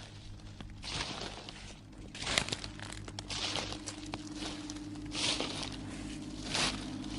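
Slow, irregular crunching rustles, about five of them a second or so apart, over a low steady droning hum that swells from about halfway through.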